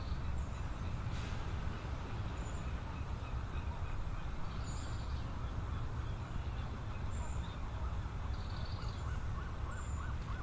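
A large flock of feeding birds calling over the water: scattered short, high calls every second or two over a steady low rumble and a din of many distant birds.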